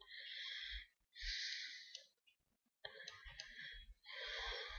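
Faint breathing close to a microphone: four breaths of under a second each, with a few soft clicks in between.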